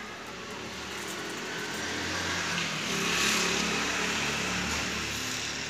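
A motor vehicle passing by, its noise swelling to a peak about three seconds in and then fading.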